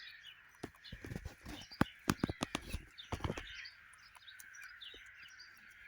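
Small birds chirping steadily, with irregular clicks and scrapes of a small spoon stirring epoxy resin and hardener in a cup, most of them in the first half.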